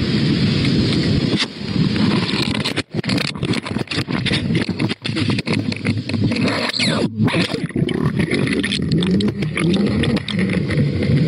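Loud rushing wind-and-water noise on a GoPro camera lowered over the side of a boat. It turns duller about seven seconds in, once the camera goes under the surface.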